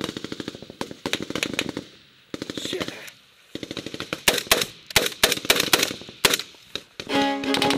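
Rapid automatic gunfire close by, in bursts of many shots with short pauses between them. Near the end, music with held notes comes in.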